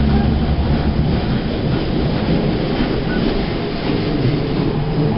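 Interior running noise of a Bombardier Flexity Swift M5000 tram: a steady rumble of wheels on rail and traction equipment, with a low hum that drops away about a second and a half in.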